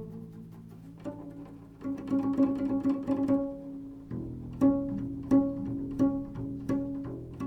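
Improvised instrumental music: plucked string notes over a sustained low drone, the notes coming in regular strokes about every 0.7 seconds in the second half.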